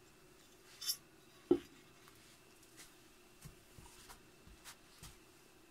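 Chrome-plated Jeep hubcap set down on a plywood board with a single knock, after a short scrape, followed by a few light taps as it is handled.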